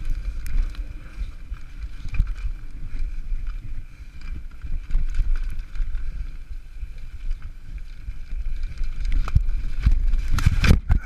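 Downhill mountain bike rattling at speed over a bumpy dirt trail, with wind rushing over the microphone and the chain and fork clattering. Near the end comes a burst of loud knocks as the bike pitches forward and the rider crashes.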